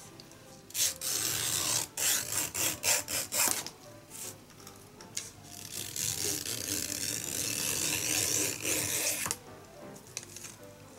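A small knife (kogatana) shaving a thin bamboo strip, scraping along the wood. There are several quick strokes early on, then one long shaving stroke of about three seconds. The knife is paring down the nodes and flattening the inner, flesh-side strip for a basket frame.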